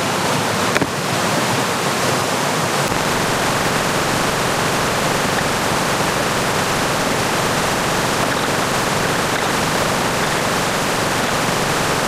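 Small creek waterfall: water rushing steadily over rock ledges in a loud, even hiss. A brief knock about a second in.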